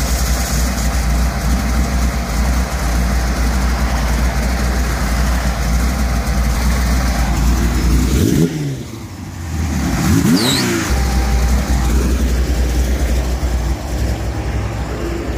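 Rear-mounted big-block V8 of a custom 1982 Pontiac Firebird running at idle through its exhaust with a steady deep rumble. The throttle is blipped twice in the middle, the pitch rising and falling each time.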